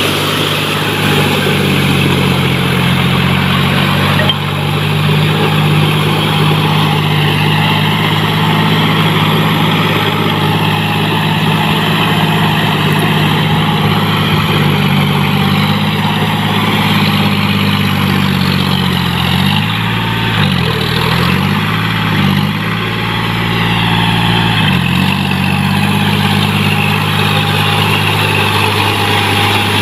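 John Deere 5045D tractor's three-cylinder diesel engine running steadily while it drives through deep paddy-field mud on cage wheels. About two-thirds of the way through, the engine note dips and recovers several times, as the engine takes load in the mud.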